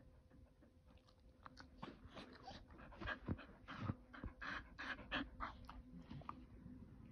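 Keeshond panting close to the microphone: a run of quick breaths, about two or three a second, starting about a second in and fading out near the end, with a couple of soft low bumps in the middle.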